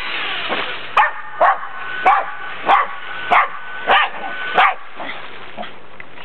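Jack Russell terrier barking in a steady run of short barks, about seven of them roughly two-thirds of a second apart, which stop about five seconds in. It is barking in excitement at a radio-controlled truck.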